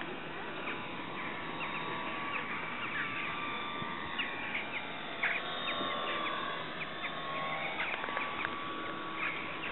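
Small birds chirping in many short high calls over a steady outdoor hiss, with the faint, steady high whine of a distant radio-controlled model aerobatic plane's motor.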